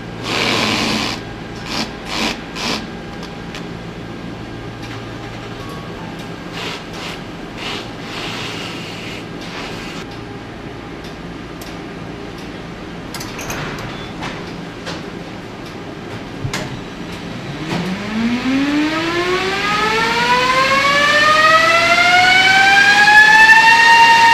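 Toyota Mirai's electric drive spinning its wheels up on a roller test stand: after a few knocks and clatters over a low factory hum, a whine rises steeply in pitch for several seconds and levels off near the end.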